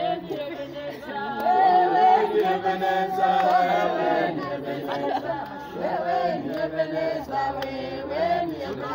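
A group of people singing a worship song together, several voices holding notes at once.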